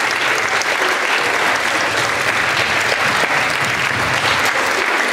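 An audience clapping steadily in a large hall, with a few voices under the applause.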